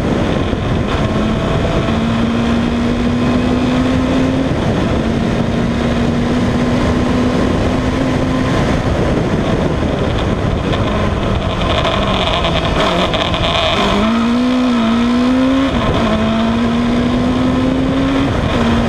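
Kawasaki ZZR1100 inline-four motorcycle engine in a single-seater racing car, pulling hard at full throttle. Its revs climb and drop back sharply at each gear change, three times in the first half. About two-thirds of the way in the revs fall and waver as the car slows, then climb again through another change near the end. A constant rush of wind runs under it all.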